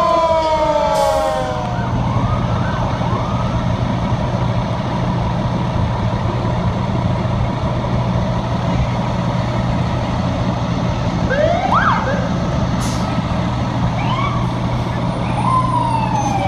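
Fire truck sirens winding down in falling pitch over the first second or two, then a fire truck's engine running steadily, with short rising-and-falling siren whoops a little past the middle and again near the end.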